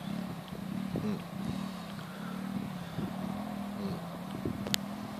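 Small monkey bike's engine running as the bike is ridden, its pitch wavering up and down, with a sharp click near the end.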